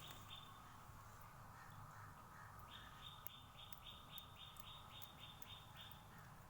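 Faint bird chirping: a quick run of short repeated notes, about four a second, at the very start and again from about three seconds in to near the end.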